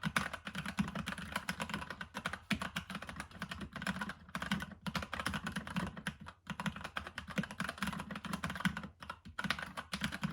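Typing on a Keychron K8 tenkeyless mechanical keyboard with Gateron brown switches: a fast, continuous run of keystrokes with a few brief pauses.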